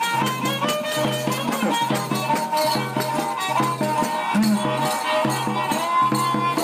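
Guerreiro folk music played by a street group: a steady, repeating low beat with tambourine jingles and rattling, under a held melody.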